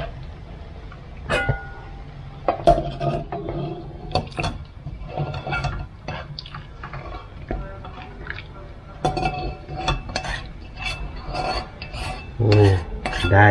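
Kitchen utensils and pots clinking and clattering: a string of irregular knocks and clinks, some ringing briefly, over a steady low hum.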